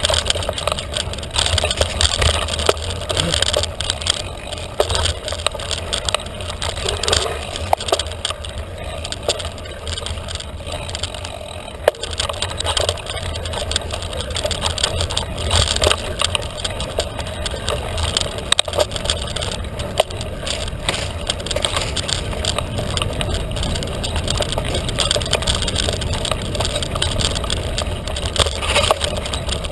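Felt carbon 29er mountain bike ridden fast along a trail: frequent rattles and knocks from the bike over bumps, over a steady low rumble of wind and tyre noise.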